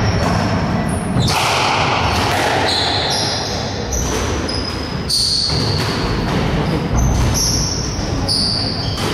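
Squash rally: the ball is struck by rackets and smacks off the front wall and floor again and again, sharp hits echoing in the court, with short high squeaks of shoes on the wooden floor.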